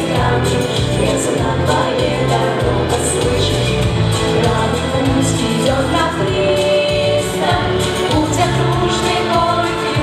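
Teenage girls' vocal ensemble singing a song together in harmony into microphones, over instrumental accompaniment with a steady bass.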